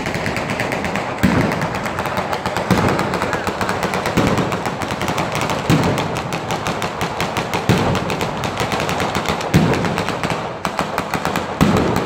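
Batteria, a chain of ground-level firecrackers going off in sequence: a dense, unbroken rattle of rapid bangs, with a heavier bang standing out about every one and a half to two seconds.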